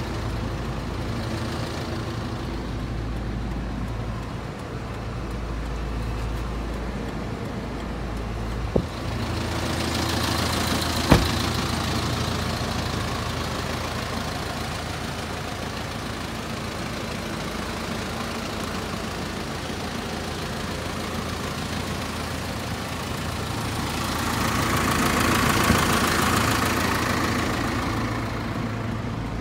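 Mitsubishi Canter truck's engine idling steadily, with two sharp knocks about nine and eleven seconds in, and a louder stretch of noise near the end.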